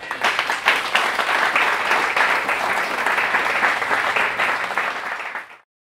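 Audience applauding, many hands clapping at once, which cuts off near the end.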